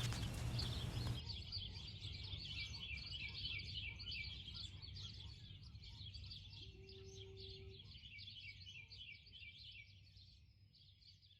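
A chorus of many small birds chirping and twittering in a dense, continuous chatter, fading out near the end.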